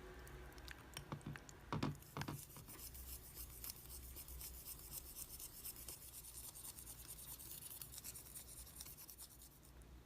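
Slime being handled by hand. Two soft squelches come about two seconds in, then a long run of fine crackling and clicking that fades near the end.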